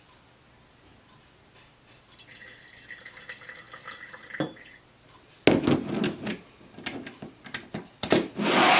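Liquid poured into a glass, a soft running trickle for a couple of seconds, followed by several loud knocks and clunks of handling.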